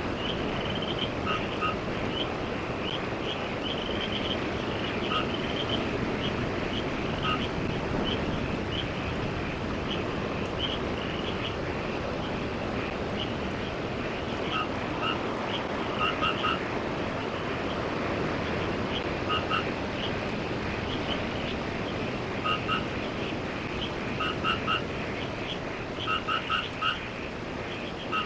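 Frogs calling at night: short croaking notes in clusters of two to four, repeating irregularly and more often in the second half, over a steady background rush.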